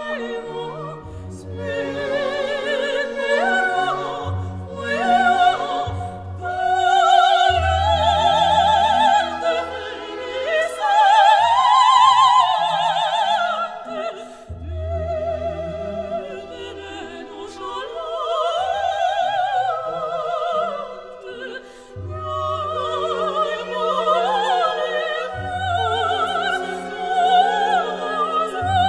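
Classical background music: an operatic voice singing long notes with heavy vibrato over an orchestral accompaniment with sustained bass notes.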